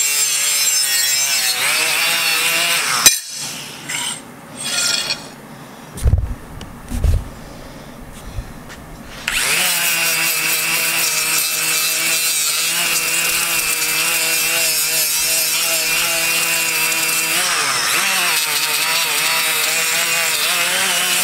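Cordless drill spinning an abrasive sanding disc against the steel of a knife blade and tang: a steady motor whine over a scratchy grinding hiss. It stops about three seconds in, leaving a few seconds of quieter handling with a couple of low thumps, then starts again about nine seconds in and runs on steadily.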